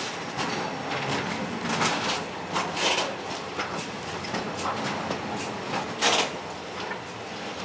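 Freight train wagons rolling past at close range: a steady rolling noise of steel wheels on the rails, broken by a few sharper clanks, the loudest about six seconds in.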